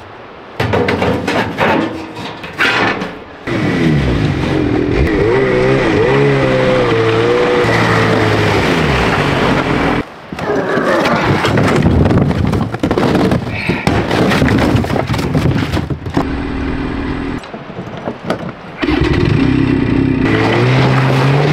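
Snowmobile engine running and revving, its pitch rising and falling. It comes in several separate stretches with short breaks between them.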